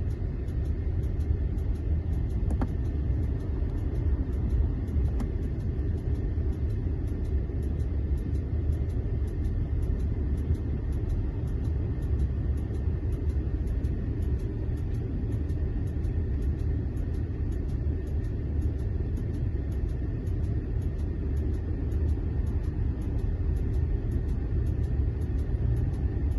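Steady low rumble with a faint high whine and a fine, regular ticking.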